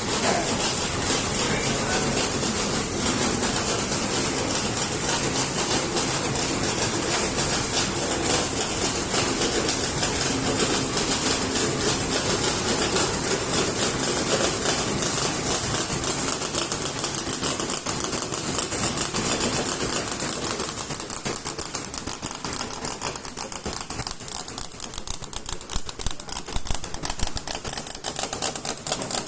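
Intermittent letterpress label printing machine running: a rapid, steady mechanical clatter of fast repeated clicks. Its lower hum thins out about two-thirds of the way through, leaving mostly the clicking.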